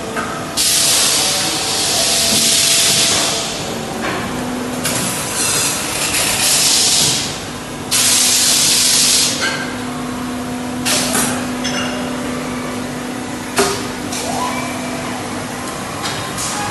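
Robotic polishing machine at work: three loud hissing bursts of two to three seconds each within the first ten seconds, over a steady machine hum, then shorter hisses and a sharp click a little past two-thirds through.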